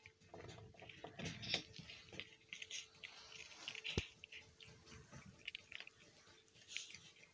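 Young tabby cat chewing and crunching pieces of a filled biscuit, a run of small irregular crunches and mouth clicks, with one sharp click about four seconds in.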